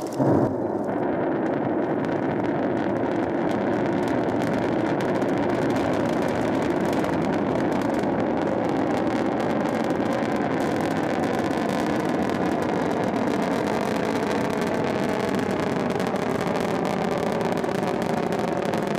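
Long March 6 rocket's kerosene-oxygen first-stage engine at liftoff and climb: a loud, steady rushing rumble that cuts in suddenly at the outset and then holds even.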